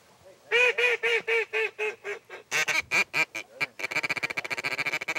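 Hand-blown duck call: a loud string of quacks about four a second, stepping down in pitch, then a fast rapid run of short quacks near the end, the calling used to bring passing ducks in to the decoys.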